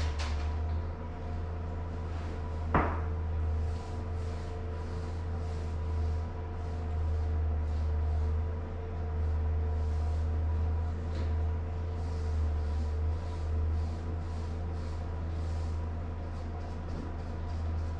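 Hand tools working against a drywall wall: a run of short, repeated swishes of a brush and a filling knife on the wall, with one sharp knock about three seconds in, over a steady low hum.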